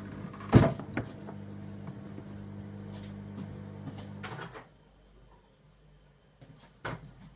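A kitchen cupboard door knocks shut about half a second in, followed by a second lighter knock and a few small clicks. Under them a kitchen appliance hums steadily and low until it cuts off after about four and a half seconds.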